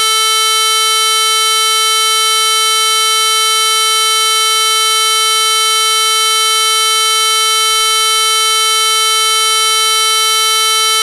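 LG Voyager phone's speaker playing a 440 Hz square wave at maximum volume: a loud, steady buzzing tone that does not change. It is run continuously to heat the speaker.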